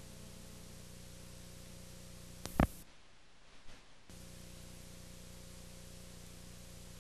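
Steady tape hiss and low electrical hum from an old videotape transfer, with no game sound standing out. About two and a half seconds in there is one loud pop, then the audio drops out for about a second and a half before the hiss comes back: a tape glitch.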